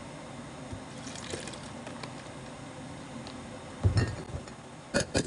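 Sweet and sour mix being poured faintly into a metal cocktail shaker tin. Near the end come a thump and then two sharp knocks as the shaker and bottles are handled.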